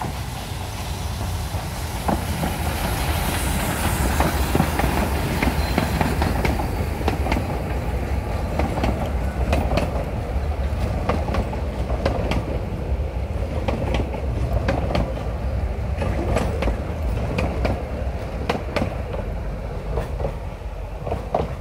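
Narrow-gauge train passing close by: the carriages rumble along the track, and from about eight seconds in the wheels click over and over on the rail joints.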